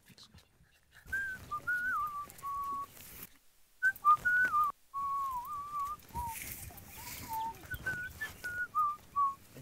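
A person whistling a simple tune in short, repeating phrases of rising and falling notes, with brief pauses between the phrases.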